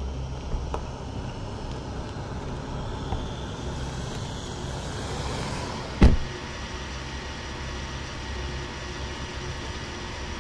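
Car engine running with a steady low rumble, swelling as the car draws near, and a single heavy thump about six seconds in that is the loudest sound.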